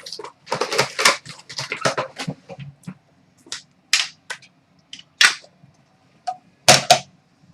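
Crackling and snapping of a trading-card box's packaging being torn open: a dense run of crackles in the first three seconds, then single sharp snaps about a second apart, the loudest a double snap near the end.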